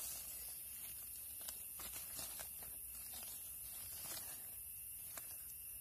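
Faint scattered crackles and small clicks of dry forest leaf litter being disturbed, over a steady high hiss.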